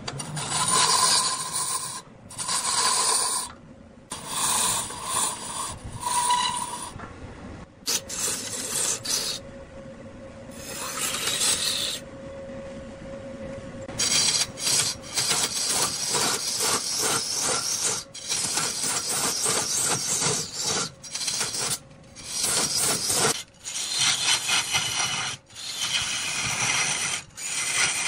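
Wood being worked on a spinning lathe: a rasping, scraping sound of tool or abrasive against the turning wood, in repeated spells that break off abruptly.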